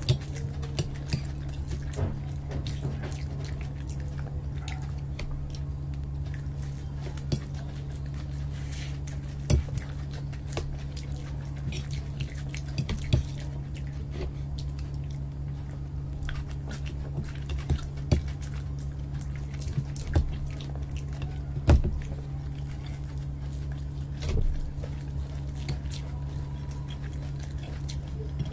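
Close-miked eating: forks tapping and scraping on steel plates and the chewing of Singapuri noodles, heard as scattered sharp clicks over a steady low hum.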